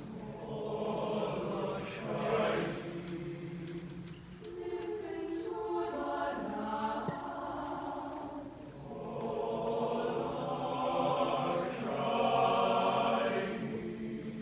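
A choir singing held chords in several voices, swelling louder a couple of times.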